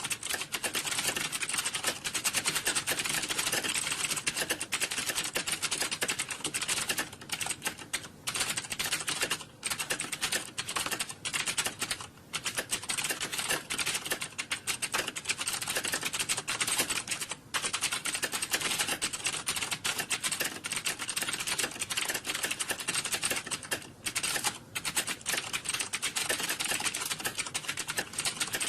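Fast, continuous typing on computer keyboards: a dense stream of key clicks that hardly lets up, with a few short pauses.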